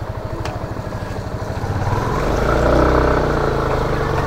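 Small motorcycle engine running at low speed. A second motorcycle passes close by in the opposite direction about three seconds in, its engine growing louder and bending in pitch as it goes by.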